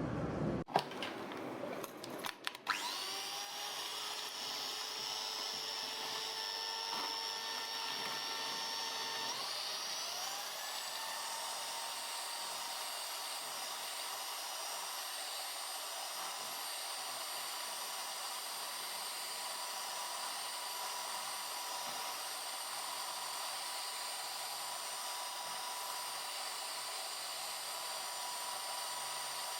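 Electric mixer running steadily, with a few knocks in the first seconds. About ten seconds in, its whine rises in pitch as the motor speeds up and then holds there.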